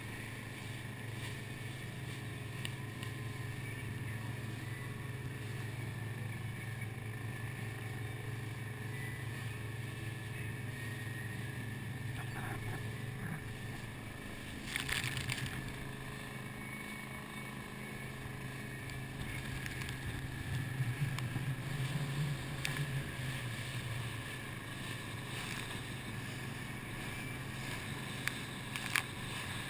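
Boat engine running steadily underway, a constant low hum with wind and water noise over it, and a brief louder noisy burst about halfway through.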